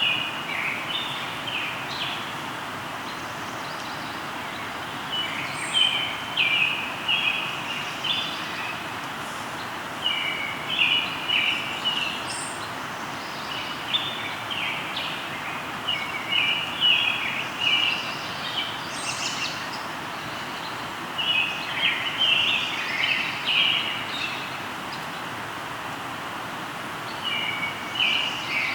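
River flowing steadily, with a songbird singing a short phrase of quick high notes about every five seconds.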